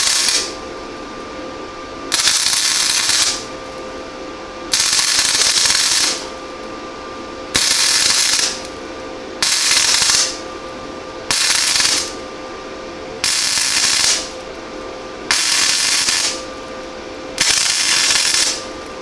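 Flux-core wire-feed welder arc crackling in about nine short bursts of roughly a second each, one every two seconds or so, with a steady hum between them. This is stop-and-start stitch welding on thin 22 gauge sheet steel, done to keep from burning through.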